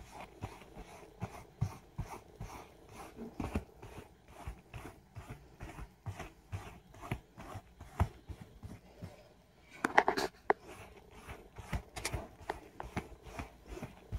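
A rubber-gloved hand rubbing velvet upholstery in quick strokes to ball up and lift cat hair, a rhythmic rustle at about three strokes a second. A few louder knocks and scuffs come about ten seconds in.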